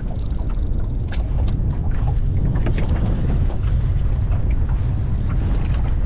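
Wind buffeting the camera's microphone over choppy water, a dense uneven rumble, with scattered light clicks from a spinning reel being cranked while a pike is played on the rod.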